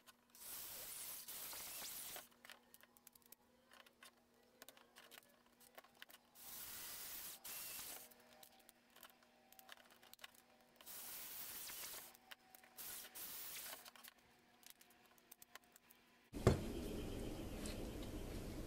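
Faint clicks and small rattles of machine screws, washers and lock nuts being fitted through a PVC fitting assembly, between stretches of steady hiss that start and stop abruptly. About three-quarters through there is a knock, and a louder steady hiss follows.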